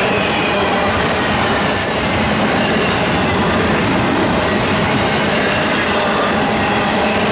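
Double-stack container well cars of a freight train rolling past at speed: a steady, loud rumble and clatter of steel wheels on rail.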